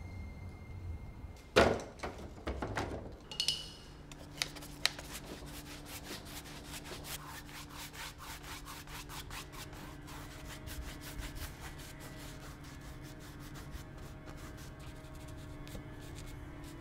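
A paintbrush scrubbing across a canvas in rapid, scratchy strokes, over a low steady hum. A sharp thump stands out about a second and a half in.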